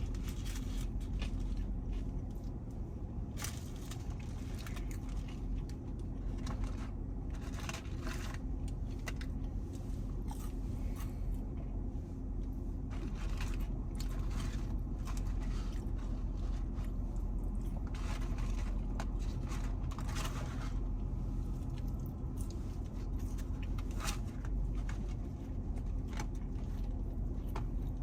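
A person eating a fast-food burger and fries: irregular bites, crunches and small crackles over a steady low hum.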